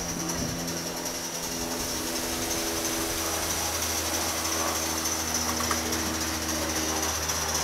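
Gauge 1 model of a BR Standard Class 5 locomotive running on garden-railway track, out of sight but approaching: a rapid mechanical ratchet-like clatter that grows slightly louder.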